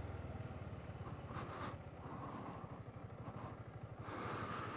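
Voge SR4 Max 350 scooter's engine running with fast, even low pulsing, under wind and road hiss that grows brighter about four seconds in.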